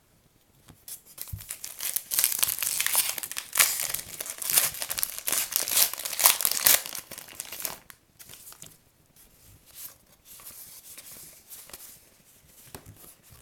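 Baseball card pack wrapper crinkling and tearing as it is opened, with dense crackling for about seven seconds, then fainter rustling.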